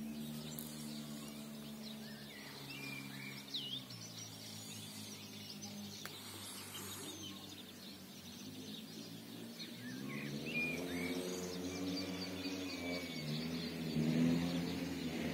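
Birds chirping over soft background music of low, held chords that shift a few times and grow louder about ten seconds in.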